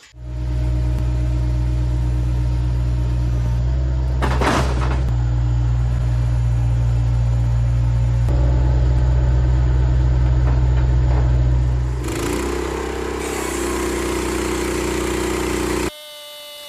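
Sawmill engine running steadily while a heavy pine cant is turned over on the mill, with a brief sharp sound about four and a half seconds in. The engine note changes and drops about twelve seconds in, then the sound cuts off abruptly near the end as music begins.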